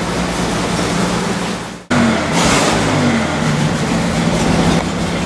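1950 DeSoto's inline six-cylinder flathead engine idling steadily shortly after a cold start. It breaks off for an instant about two seconds in and comes back louder at the exhaust, with a short hiss just after.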